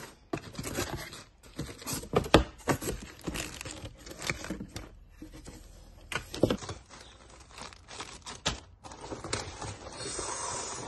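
Cardboard shipping box being unboxed by hand: flaps pulled open and cardboard scraping and rustling, with irregular sharp knocks, the loudest a little over two seconds in. Near the end, plastic packaging crinkles as it is lifted out.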